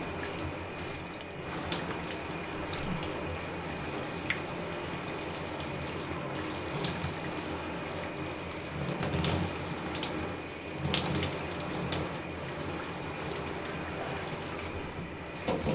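Shower running steadily, the water spray making an even hiss with small splashes now and then.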